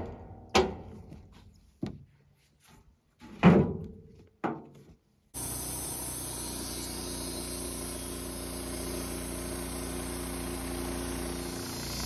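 About five sharp clunks from work at the blade housing of a Wood-Mizer LT15 band sawmill, the loudest about three and a half seconds in. About five seconds in, the sawmill starts suddenly, running steadily as its band blade cuts through an incense cedar log.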